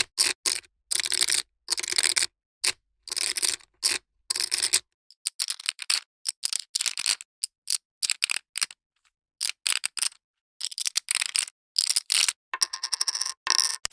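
Poker chips clicking and clattering against each other in short clusters, separated by silent gaps. Near the end comes a faster, denser run of rapid clicks.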